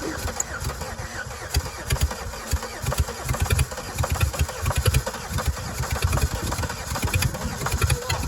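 The wrecked cart's car engine running after being started, with uneven low pulsing and rising and falling loudness.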